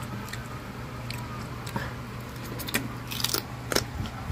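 Close-up chewing of a last mouthful of chicharon: scattered wet mouth clicks and crunches, coming thicker about three seconds in. The pork crackling has gone tough and chewy rather than crisp.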